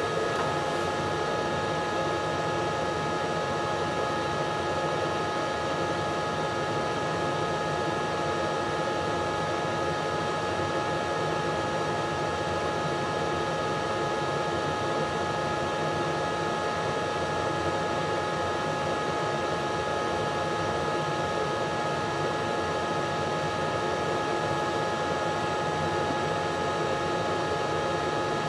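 Laser engraving machine running steadily: an even mechanical hiss with a few constant high whining tones, like fans and extraction running.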